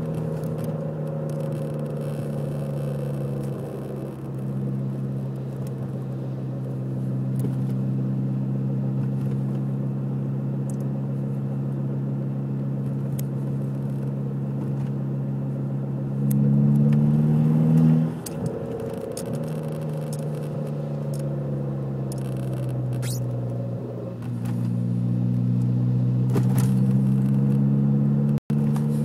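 2003 VW GTI's 1.8-litre turbocharged four-cylinder engine running at a steady speed, its pitch and loudness briefly stepping up about halfway through, then dropping, and rising again a few seconds later.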